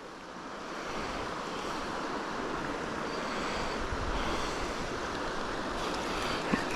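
Creek water running past: a steady, even rush of flowing water.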